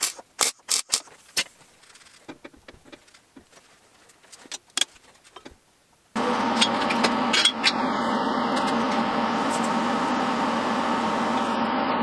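MIG welder tack-welding steel: short spells of sputtering crackle and pops, loudest in the first second and a half. About halfway through, a loud, steady machine noise starts abruptly and runs on.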